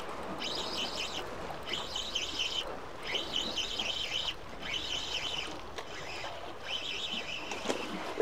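Spinning reel sounding in about six short bursts of a second or so each, a fast high whirring chatter, as a hooked kasago (scorpionfish) is fought and reeled in.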